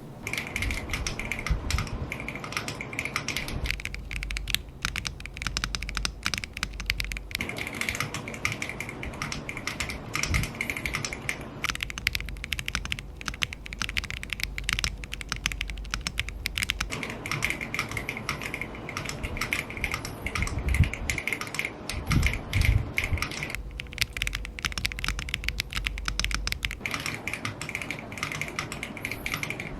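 Steady typing on a Monsgeek M7W aluminium keyboard built without foam, with Everglide Wild Pansy tactile switches and PBT keycaps: a dense, continuous run of keystroke clicks.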